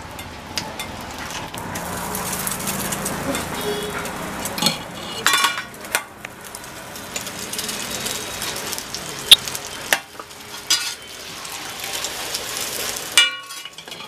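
Egg and parathas sizzling on a large flat tawa griddle. A metal spatula scrapes across the griddle and strikes it with sharp clanks every few seconds.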